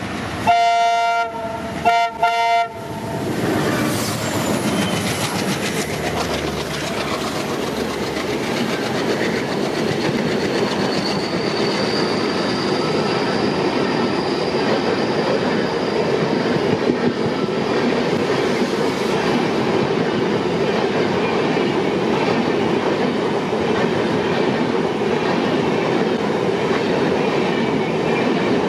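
An ALCo WDM-class diesel locomotive sounds its multi-tone horn in a few short blasts as it approaches at speed. It then rushes past, and a long rake of passenger coaches rolls by close, the wheels clattering over rail joints in a steady rushing noise, with a faint high wheel squeal midway.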